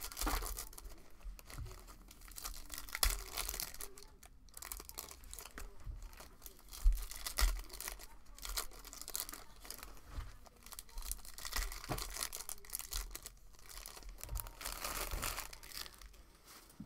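Trading-card pack wrappers being torn open and crinkled by hand, an irregular run of rustling and crackling with scattered sharp clicks.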